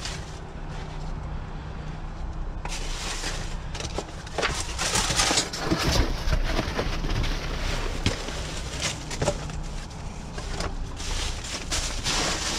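Plastic wrap, bubble wrap and bags crinkling and rustling in repeated bursts as gloved hands rummage through a dumpster's contents, starting about three seconds in, over a steady low hum.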